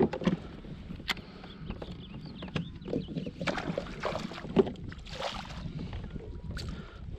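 Scattered knocks and rustles of handling on a fishing kayak, a freshly landed bass being dealt with, over a steady low rumble. The sharpest knocks come right at the start and about four and a half seconds in.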